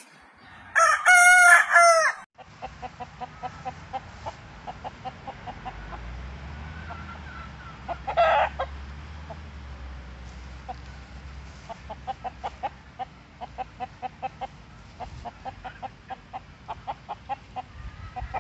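Rooster (gamecock) crowing once, loud and brief, about a second in, followed by long runs of short repeated clucks, with one more short call about eight seconds in.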